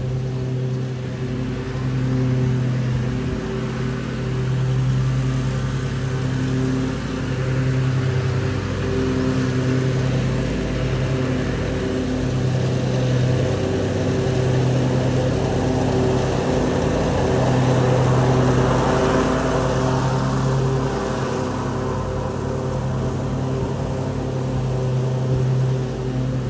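Lawn mower engine running at a steady pitch, swelling and dipping slightly in loudness. About two-thirds of the way through, a rushing noise swells and fades over it.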